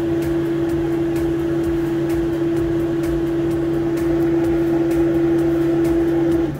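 A machine running with a loud, steady hum on one tone over a lower drone, which cuts off suddenly near the end.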